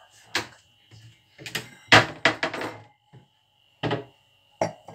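A series of sharp knocks and clinks of glassware handled on a kitchen counter: a wine bottle and a wine glass being moved and set down. The loudest is a quick cluster of several knocks about two seconds in, with a faint steady high whine underneath.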